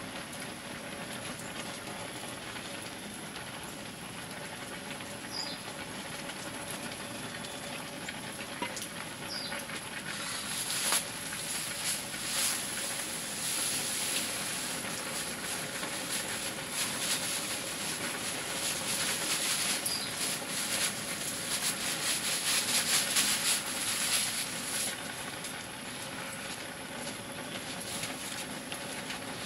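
Pig fodder cooking in a pot over a wood fire: a steady hiss, with a dense run of crackling from about ten seconds in that dies down again near the end.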